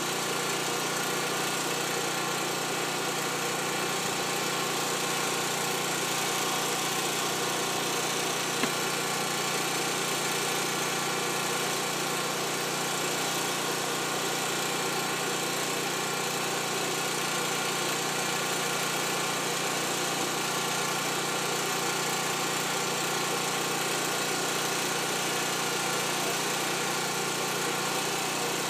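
Fire truck engines running steadily at idle, an unbroken mechanical drone. A single brief click about eight and a half seconds in.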